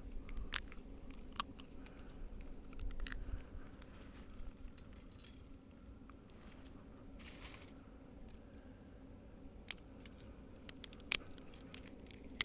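Small dry twigs snapped by hand into kindling: scattered sharp snaps and cracks, a few in quick runs, with a brief rustle about seven seconds in.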